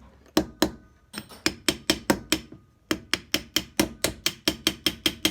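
A run of sharp taps on a small engine carburetor, two at first, then steady strings of about four to five a second, as its cover is tapped to break the gasket loose.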